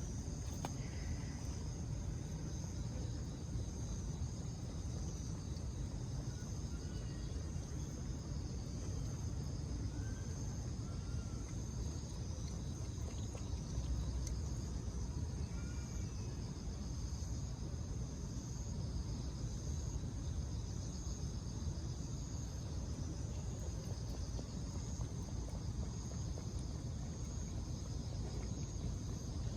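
Steady outdoor chorus of insects chirring in an even high band, over a low steady rumble.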